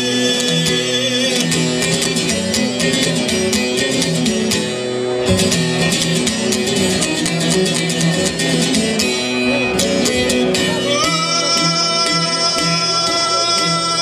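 Çifteli, the two-string Albanian long-necked lute, plucked in quick runs over a steady drone string. Near the end a man's voice comes back in, singing a long held folk phrase over it.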